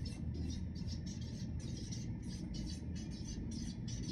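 Felt-tip marker writing on flip-chart paper: a quick series of short scratching strokes as the letters are drawn.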